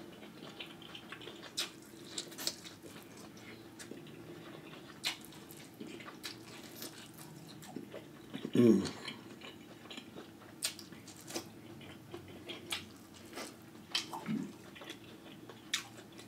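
Close-miked eating: wet chewing, lip smacks and small clicks from seafood and vegetables being eaten by hand, over a faint steady low hum. A short hummed "mm" about nine seconds in, and a softer one near the end.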